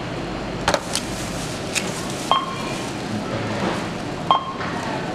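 Checkout barcode scanner beeping twice, about two seconds apart, as items are scanned, with a few light knocks of small plastic toy tubs being handled on the counter.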